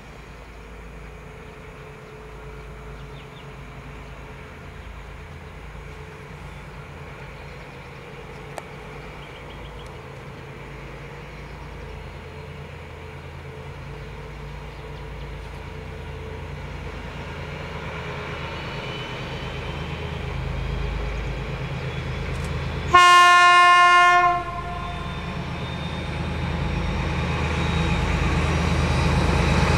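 SU46 diesel locomotive approaching with a passenger train, its engine rumble and wheel noise growing steadily louder. About two-thirds of the way in it sounds its horn in one loud blast of about a second and a half: the Rp1 'attention' warning signal.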